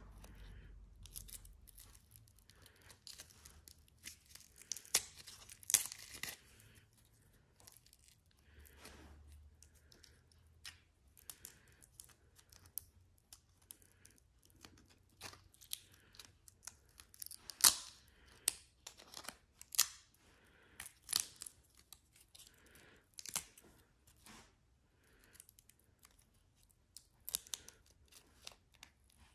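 A thin sheet of cured resin being peeled and cracked off the top of a silicone dice mould: irregular sharp crackles and crunches, the loudest about 18 seconds in.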